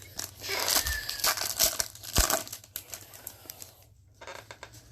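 Foil wrapper of a trading-card pack crinkling and tearing as it is opened by hand, with one sharp tap about two seconds in.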